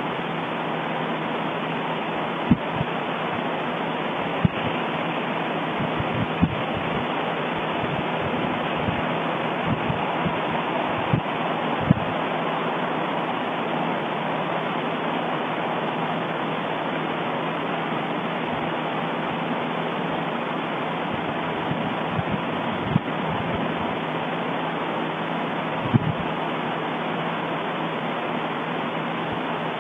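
An erupting volcano: a steady rushing noise from the eruption, with a handful of short low thumps scattered through it.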